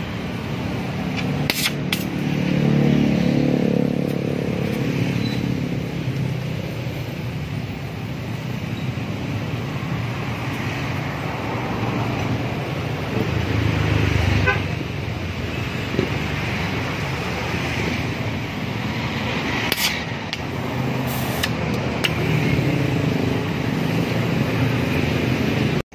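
Electric stick welding on a steel exhaust silencer: the arc's steady crackling hiss. Road traffic is heard behind it, with a pitched vehicle drone about two to five seconds in and again near the end.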